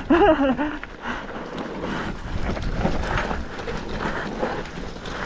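Mountain bike rattling and clattering over a rough, rocky downhill trail, with irregular knocks from the frame and wheels and a low rumble of wind on the microphone.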